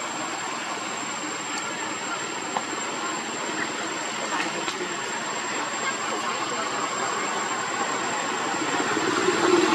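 A motor vehicle engine running over a steady hiss, growing louder near the end.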